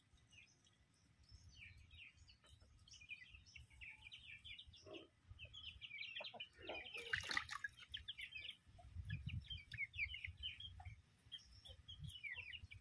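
Faint chirping of farmyard birds, chickens among them: many short, high calls repeating throughout. There is a brief burst of noise about seven seconds in.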